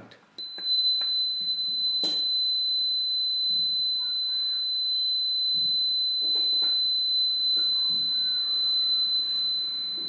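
Small round electronic buzzer driven by a countdown kitchen timer's output, sounding one steady high-pitched tone through a ten-second countdown. It starts about half a second in and cuts off right at the end, as the count runs out.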